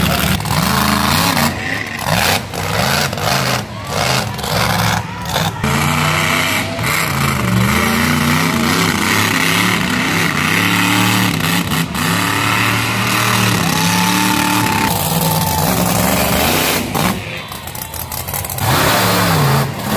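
Monster truck engine revving hard, its pitch rising and falling again and again as the truck drives the dirt track, with several abrupt breaks in the sound.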